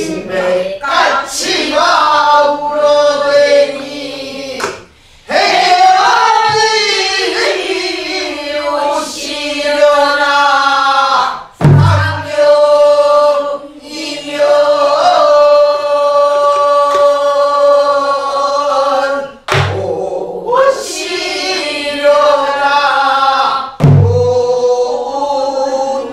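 A woman singing a Namdo folk song (southern Korean minyo) in long, wavering, sliding phrases, with a few low strokes on a sori-buk barrel drum marking the beat.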